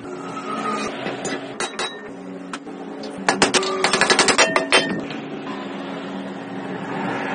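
Sharp metal taps as a gear is driven into the wood planer's gearbox housing with a socket, a fast run of a dozen or so taps about three seconds in, over a steady low hum.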